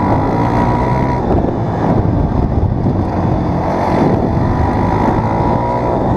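Dirt bike engine running steadily while being ridden.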